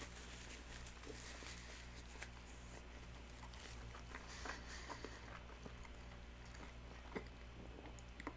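Faint chewing with scattered small clicks, over a steady low hum.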